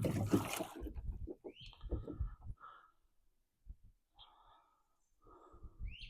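A bird calling twice, a short rising call each time, one about a second and a half in and one near the end, over close rustling and knocking. A loud rustle at the very start is the loudest sound.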